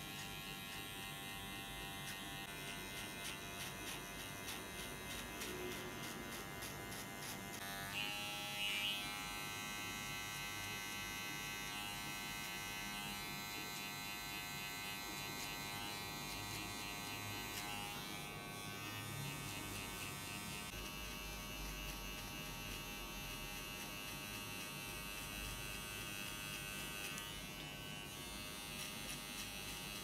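Electric hair clipper buzzing steadily as it cuts a fade into the side of the head. Its tone changes, with a brief louder moment, about eight seconds in.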